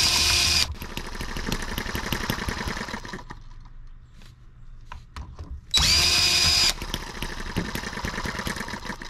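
Cordless drill spinning the flywheel of a small M18 model engine to start it, in two short runs of about a second each, one at the start and one about six seconds in, each with a whine rising to a steady pitch. Between the runs there is a quieter irregular ticking and rattling as the engine turns over without catching, part of a struggle to get it started.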